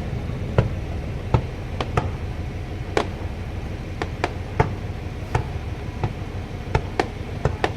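Fireworks bursting: about a dozen sharp bangs at irregular intervals over a steady low rumble.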